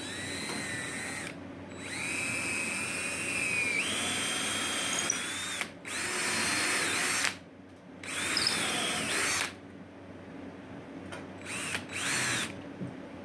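Power drill boring holes in the wooden frame in five bursts of a few seconds each, with short pauses between them. Its motor whine steps up in pitch partway through the longest run.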